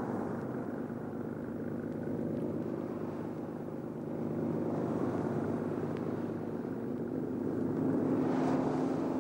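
An engine running steadily, growing a little louder near the end.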